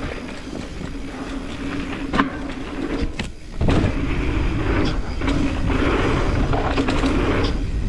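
Mountain bike riding down a dirt trail: the tyres roll over rough ground, with rattling clicks and wind on the microphone. About three seconds in the noise briefly drops away, then comes back louder.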